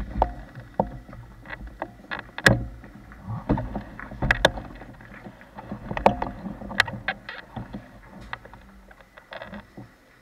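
Irregular knocks, clicks and rustling as a driver climbs into a go-kart and settles into the seat, carried through the kart's chassis to the camera mounted on it. The loudest knocks come about two and a half and four and a half seconds in.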